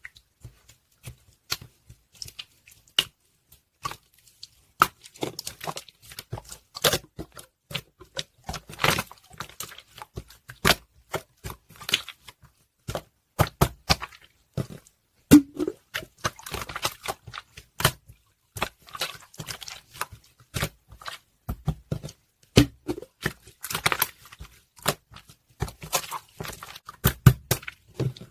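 Slime being squeezed and poked by hand, giving an irregular run of sharp clicks, pops and squishes with short pauses between them.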